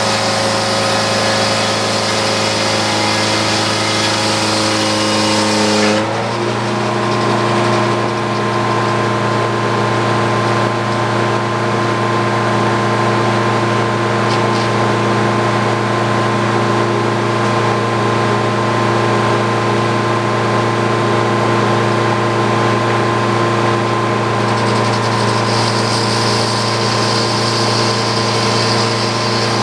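Engine driving a Frick sawmill, running steadily at speed. About six seconds in, the high hiss drops away and the engine's pitch shifts, and the hiss partly returns near the end.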